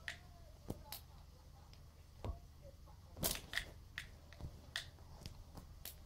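Irregular light taps and clicks with some rustling as a cat bats at a curtain and an unplugged power cord, the loudest cluster a little after halfway.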